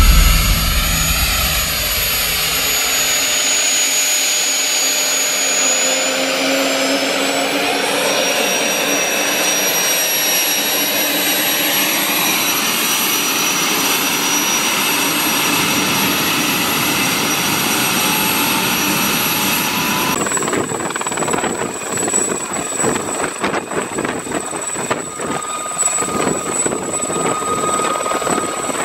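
Army Gazelle helicopter's turboshaft engine and rotor running on the ground with a high steady turbine whine that rises slightly in pitch. About two-thirds of the way in the sound turns rough and choppy, with an unsteady level, as the helicopter lifts off into a low hover.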